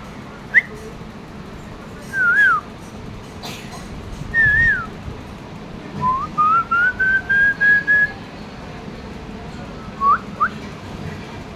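A person whistling close to the microphone: a few short sliding notes, then about two seconds of quick notes climbing step by step in pitch, and two short rising chirps near the end.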